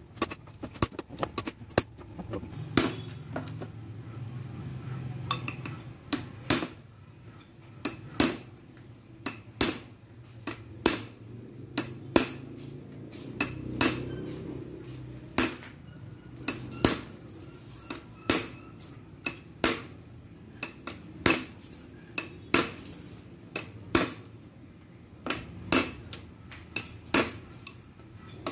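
Hammer tapping along the metal edge of an Isuzu truck radiator's top tank: sharp metallic taps, irregular, about one to two a second and sometimes in quick pairs.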